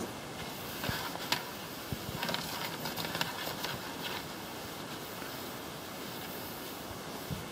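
A few faint knocks and rustles as a hand moves over a wiped shelf top in the first four seconds, then only a steady background hiss.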